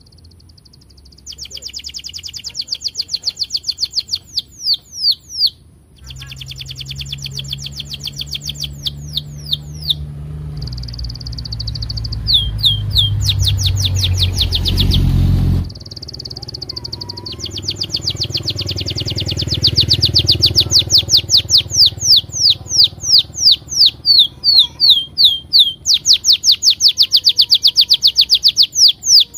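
Domestic canary singing a long, continuous song of rapid repeated "cuit cuit" chirps: fast runs of high, falling notes, with trills and a few held whistled notes. The song breaks off briefly a few times.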